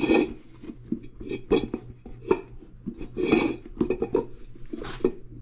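Irregular metallic clanks and scraping as a minibike wheel rim and tire are handled and worked by hand, with two louder ringing clanks near the start and about three seconds in.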